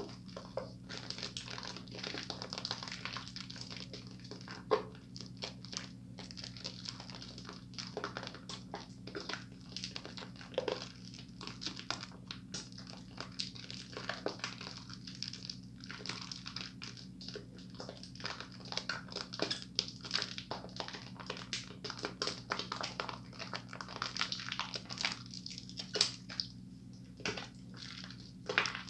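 Soapy hands rubbing and squeezing thick lather over a sink: irregular wet squishing with small crackles and pops of foam.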